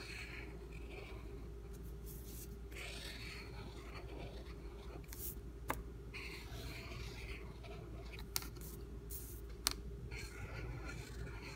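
Crayola felt-tip marker drawing swirls on paper: faint strokes of the tip rubbing across the sheet that come and go, with a few small sharp clicks in the second half.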